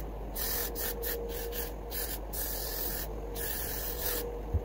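Aerosol hair spray hissing in several short bursts, sprayed onto a wig cap.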